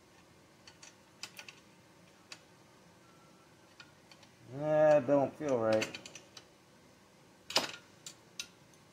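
Small clicks and taps of hand tools working on a Homelite Super XL chainsaw during assembly. Midway there is a wordless vocal sound of about a second and a half, and the sharpest click comes near the end, followed by two lighter ones.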